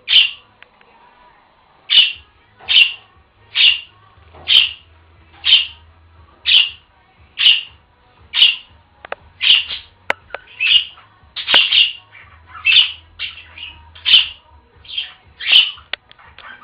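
Pet budgerigar giving a long series of short calls, roughly one a second at first and coming faster in the second half.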